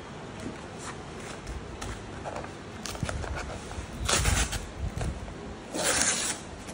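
A brown kraft-paper mailer envelope being torn open by hand: paper crinkling and rustling, with two louder tearing rips about four and six seconds in.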